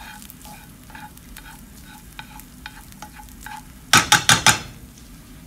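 Cooked rice being stirred and tossed with kitchen tongs in a hot non-stick frying pan, with light scraping ticks over a faint sizzle. About four seconds in, the tongs clack sharply about five times in quick succession.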